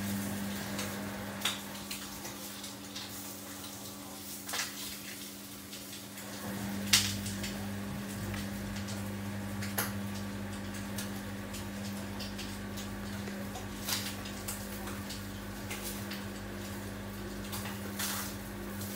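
Samsung front-loading washing machine running with a load of laundry: a steady motor hum that grows louder, with a deeper hum joining it, about six and a half seconds in, and scattered clicks and knocks from the drum.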